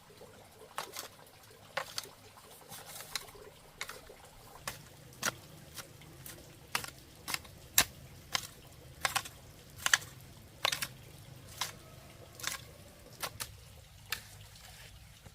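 A series of irregular sharp clicks or taps, about one or two a second, loudest around the middle, over a faint low hum.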